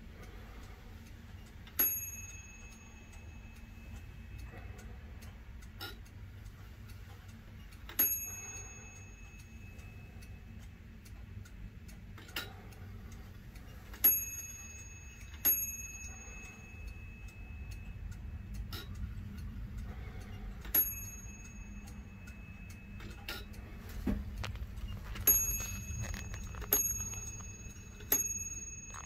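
Vintage German 8-day key-wind wall clock striking its bell: once, once, twice, once, then three times, each blow ringing on and dying away, with the strokes of a count about a second and a half apart. The movement ticks faintly and steadily underneath.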